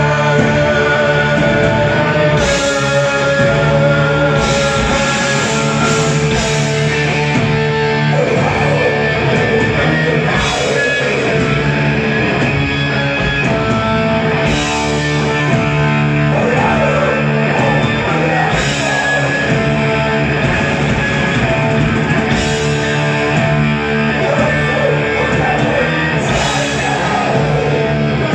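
Heavy metal band playing live: guitars and drums in a dense, steady wall of sound, with cymbal crashes every few seconds.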